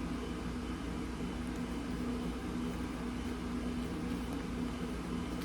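A steady low mechanical hum, like a running fan or appliance motor, holding one even pitch throughout.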